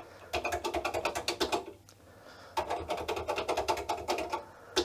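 Typing on the Dragon 32 computer's keyboard: two quick runs of clicking key presses with a short pause between them, as the freshly powered-on machine is tried out.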